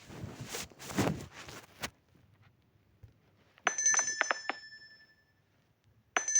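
An electric bell, like an old telephone bell, rings in quick repeated strikes. One burst of about a second comes around three and a half seconds in, and another starts near the end. Before it there is a brief rustling noise.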